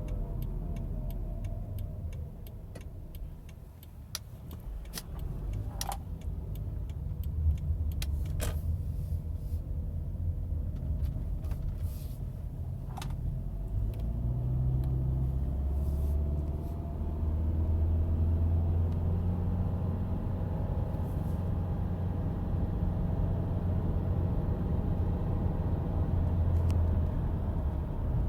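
Subaru car driving with steady engine and road rumble, scattered clicks and rattles in the first half, and a faint whine that rises and falls in pitch; it is the whining noise the owner wants diagnosed. The rumble grows louder about halfway through.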